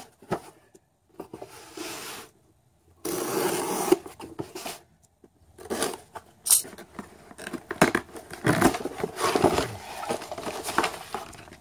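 Scissors cutting the packing tape on a cardboard box, with a loud tearing noise lasting about a second, about three seconds in. Then cardboard flaps and packing paper rustle and scrape as the box is opened.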